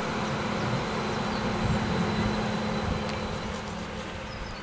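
Electric trams at a stop: a steady hum with a thin high electrical whine from the trams' running equipment, easing off a little toward the end.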